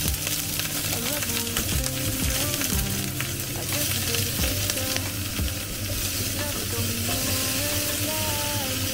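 Garlic chives and onion frying in hot oil in a frying pan, a steady sizzle that starts suddenly as they are scraped in, stirred with chopsticks.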